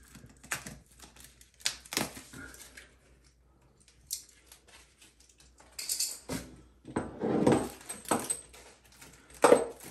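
Handling noises from fitting a water supply hose: scattered clicks and small knocks of the hose fitting, a stretch of rustling and crackling about six to eight seconds in, and a sharp knock near the end.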